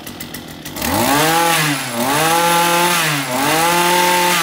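Two-stroke Tanaka brush cutter engine with a 37 mm bore revved up from idle three times in quick succession. Each time the pitch climbs, holds briefly and dips, and it drops back toward idle at the end.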